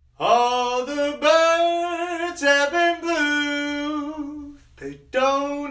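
A solo voice singing a slow melody with long held notes and no clear accompaniment, pausing briefly near the end before going on.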